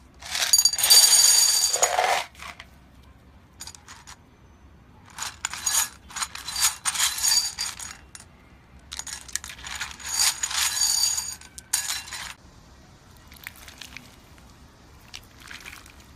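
Handfuls of plastic acrylic gems poured into a glass bowl, clattering and clinking against the glass in three separate pours, with a bright ring from the bowl.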